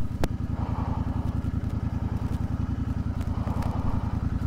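Royal Enfield Interceptor 650's parallel-twin engine idling at a standstill with a steady, rapid beat. A single sharp click sounds just after the start.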